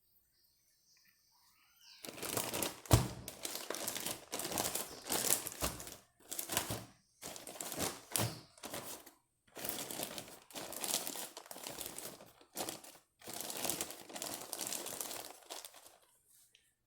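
Close-up crinkling handling noise in a string of bursts with short pauses, starting about two seconds in, with one sharp click about a second after it begins.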